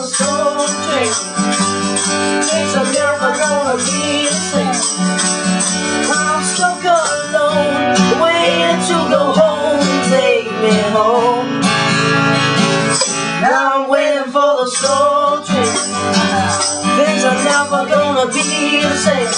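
Acoustic guitar strummed under a harmonica solo, its notes bending up and down.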